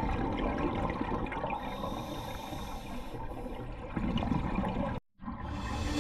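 Water rushing, heard as a steady noisy wash, cut off abruptly by a brief dropout to silence about five seconds in.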